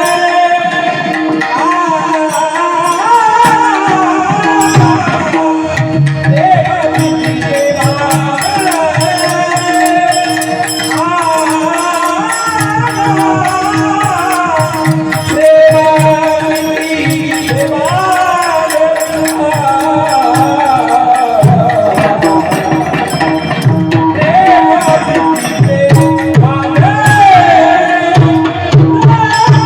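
Kirtan devotional singing: a vocalist sings a richly ornamented melody over a steady held drone note, with tabla keeping time throughout.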